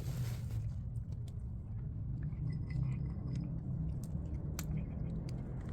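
A street cat eating, with small wet chewing clicks and ticks from its mouth on the food, over a steady low background rumble.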